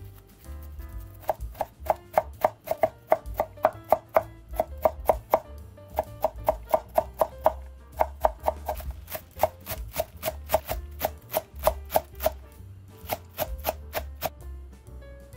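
Chef's knife chopping carrot and then chives on an end-grain wooden cutting board: quick, even strokes about three to four a second, with a couple of short pauses.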